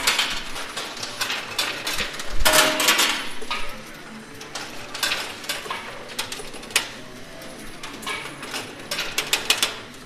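Metal coins clinking and clattering in a coin pusher machine as coins drop and are pushed over the shelf edge. There is a dense flurry of clatter near the start and another around the third second, then scattered clinks.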